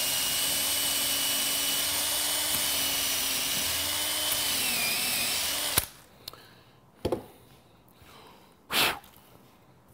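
Electric drill with a 7/16-inch bit boring through MDF, the motor running steadily with its pitch dipping briefly under load, then stopping suddenly about six seconds in. A few short knocks of handling follow.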